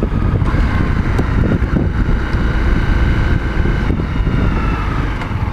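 125cc pit bike engine running steadily on the move, its faint whine wavering a little in pitch, under heavy wind buffeting on the microphone.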